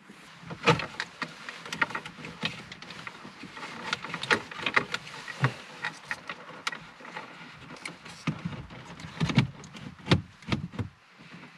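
Irregular plastic clicks, knocks and scrapes as an Android head unit is worked into the radio opening of a Ford Mondeo mk4's dashboard.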